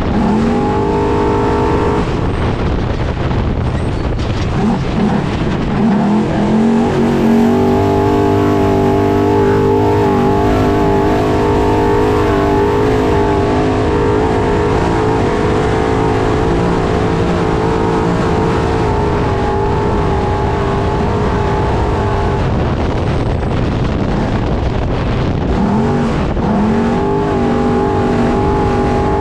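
Trophy truck's engine heard on board under racing load, held at high revs, with its pitch climbing as it accelerates about half a second in, again around six seconds in, and near the end. A constant rough rush of tyre, terrain and wind noise runs underneath.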